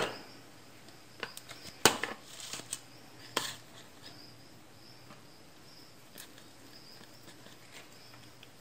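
A few scattered light knocks and clicks as a knife and hand handle a block of soft fresh cheese over a plastic bowl, the sharpest about two seconds in, over faint room hiss.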